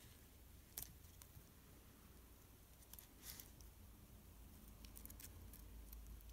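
Faint clicks and light rustling as fingers handle the small parts of a DJI Mavic Pro camera gimbal and its flat ribbon cable: one sharp click about a second in, a brief rustle near the middle and a few tiny clicks later, over a low steady hum.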